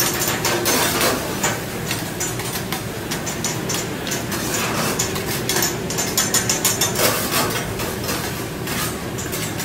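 Metal spatulas scraping and clacking against the steel top of a large round Mongolian-grill griddle as food is pushed and turned, with a quick run of clacks about six seconds in.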